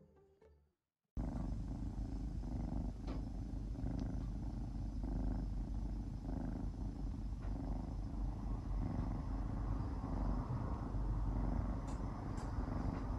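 Tortoiseshell kitten purring steadily as it dozes, the purr swelling and easing with each breath about once a second; it starts suddenly a second in.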